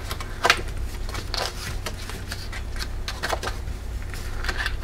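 Pages of a small top-bound paper pad being turned by hand, each turn a brief papery flick, about five in all, over a steady low hum.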